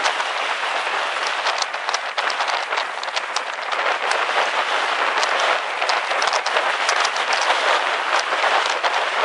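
Heavy rain pattering steadily: a dense hiss made up of many small drop strikes, with no let-up.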